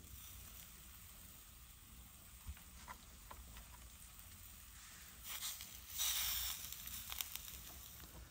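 Coated fish pieces laid into hot oil in a wide pan, sizzling in two short bursts past the middle, with a few light clicks before.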